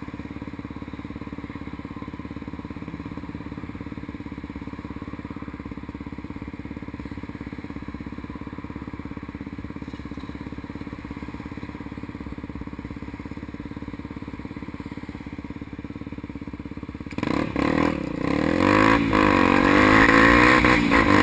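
Honda XR250 Tornado's single-cylinder four-stroke engine idling steadily while stopped, then revving up as the bike pulls away near the end, its pitch rising and falling through the gears, with rushing wind noise on the microphone.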